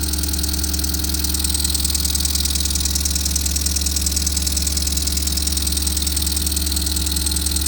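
Clevedon Steam Libra twin-cylinder model steam engine running steadily on compressed air while being bedded in, its exhaust a fast, even hiss of beats over a steady low hum.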